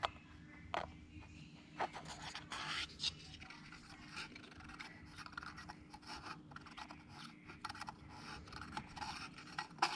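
3D-printed plastic engine parts being handled and fitted together: scratchy rubbing and scraping with a few sharp clicks, as the polystyrene displacer's spring-wire rod is worked through its bushing in the cylinder.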